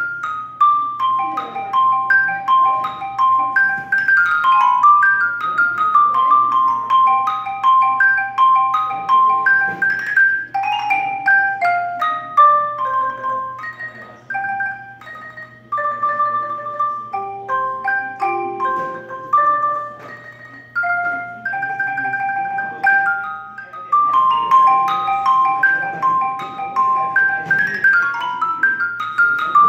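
Solo wooden-bar mallet keyboard instrument playing a fast melody of short, bright, quickly decaying notes in the upper register. The playing eases into softer passages about halfway through and again a little later, then picks back up.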